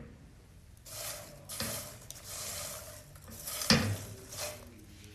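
A spatula stirring freshly popped popcorn in a pan, giving a dry rustling and scraping against the pan in several bursts. A single sharp knock on the pan comes a little past halfway.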